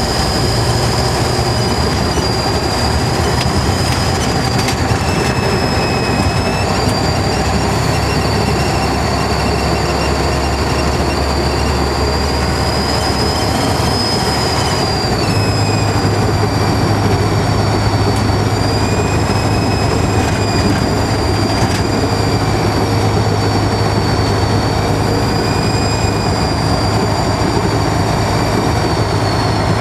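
Scania N94UD double-decker bus's turbocharger whistling loudly over the diesel engine's drone: a high whine that wavers in pitch, with clear steps about 7 and 15 seconds in, heard from on board.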